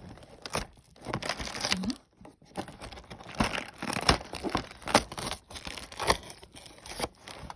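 Packaging of a fidget toy advent calendar crinkling and tearing as it is opened and the toys are pulled out. The sound is irregular crackles and clicks, with a short pause about two seconds in.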